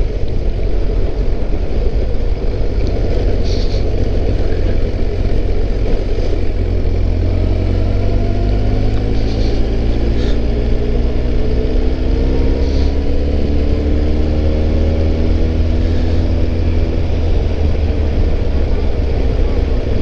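Kawasaki ZRX1200S inline-four motorcycle engine running on the move under a heavy low wind rumble on the microphone. From about seven seconds in, the engine note climbs gradually as the bike gathers speed.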